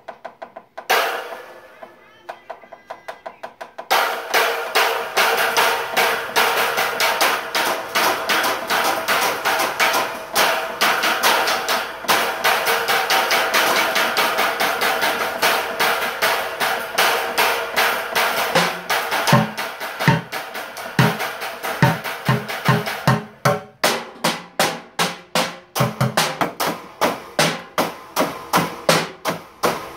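Drumsticks beating a fast, steady rhythm on a homemade drum setup along with a recorded song playing. From about nineteen seconds deeper thuds join the stick hits, and a little later the hits stand out more clearly against the music.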